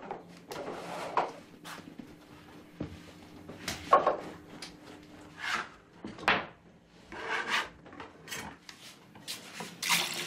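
Bread dough being worked by hand on a floured wooden table: irregular rubbing and scraping strokes, roughly one a second, as loaves are shaped and cut with a dough scraper.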